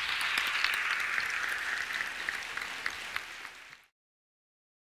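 Audience applauding, a dense patter of many hands that eases a little and is cut off abruptly about four seconds in.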